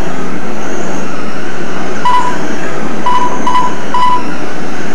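Several Traxxas Slash electric RC short-course trucks racing on a dirt oval: a loud, steady whir of motors and tyres on the dirt. Four short electronic beeps come in the second half, typical of a lap-timing system counting cars as they cross the line.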